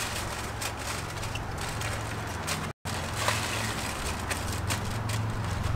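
Aluminium foil crinkling and rustling with small clicks and scrapes as rib racks are laid in and handled, over a steady low hum that grows louder near the end. The sound cuts out completely for a moment about halfway through.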